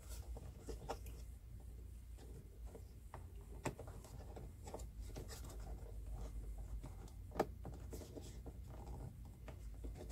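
Hands rubbing and scraping a door speaker and its wiring against the plastic door panel while pulling the short speaker wire through the opening. There are a few sharp clicks, the loudest about a third of the way in and about three-quarters through, over a low steady hum.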